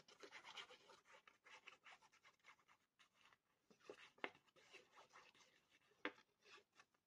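Faint scratching and rubbing of a liquid-glue bottle's tip drawn across the back of a piece of patterned paper, with a couple of light taps about four and six seconds in.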